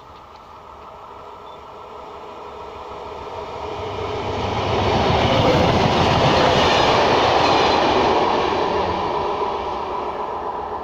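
Locomotive-hauled passenger train passing at speed, growing steadily louder as it approaches, wheels clattering on the rails at its loudest about halfway through as the coaches go by, then easing off near the end.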